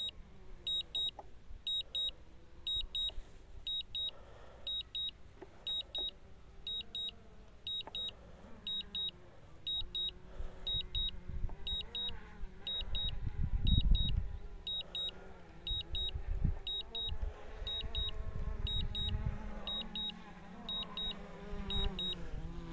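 DJI Phantom 3 controller's critically-low-battery alarm: short high-pitched beeps in quick clusters, repeating about once a second, warning that the drone's battery is nearly flat and the aircraft is auto-landing. Under it is a low rumble that grows louder around the middle.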